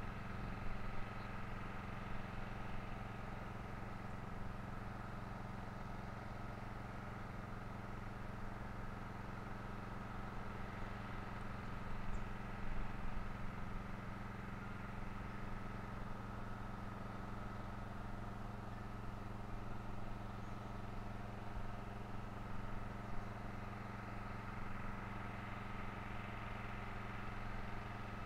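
Steady low mechanical hum made of several held tones, unchanging throughout, with nothing else standing out.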